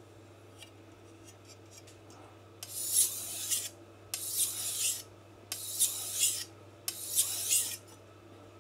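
Four strokes of a steel knife blade drawn across a wet King Deluxe 1000 grit whetstone, each a hissy scrape about a second long with short pauses between, starting about two and a half seconds in: working one side of the edge to raise a burr.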